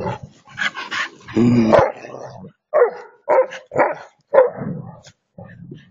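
Tibetan mastiff and Staffordshire bull terrier play-fighting: a string of short growling barks, one held longer in the first two seconds, then several about twice a second, fading near the end.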